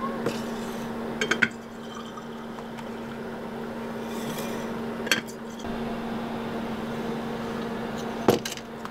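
Plastic pour-over coffee drippers and metal tumblers being handled on a counter: a few sharp clicks and knocks as the drippers are lifted off and set down. A steady low hum runs underneath.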